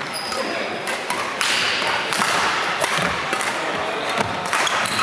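Badminton rally in a large sports hall: sharp racket hits on the shuttlecock every second or so and brief high squeaks of shoes on the wooden court, over the background hubbub of play on other courts.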